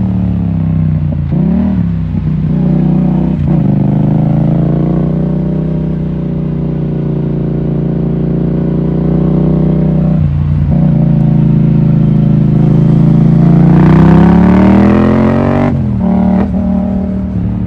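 Yamaha MT-07's parallel-twin engine pulling hard under load. The revs drop and build again several times with quick shifts through the gears, climb to their highest near the end, then fall away sharply twice.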